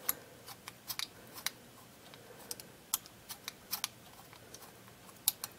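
The EV control wheel on a Polaroid Model 800 shutter being turned through its exposure stops: a run of small, irregular mechanical clicks, a few a second.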